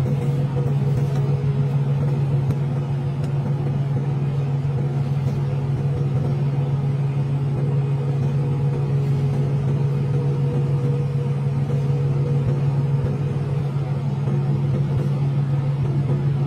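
Steady low mechanical hum with a fainter, higher tone above it, unchanging in level.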